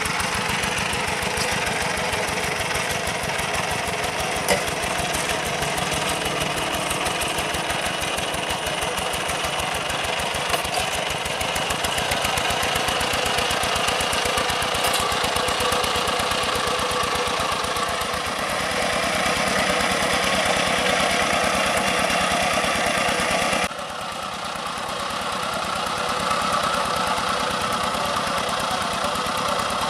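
Single-cylinder diesel engine of a two-wheel hand tractor running steadily under load while tilling a rice field, a fast, even chugging. A couple of sharp ticks come early on, and the level and tone shift suddenly about three-quarters of the way through.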